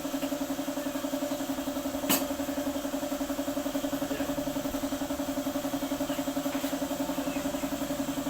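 Engine idling steadily with an even, rapid pulse, with one sharp click about two seconds in.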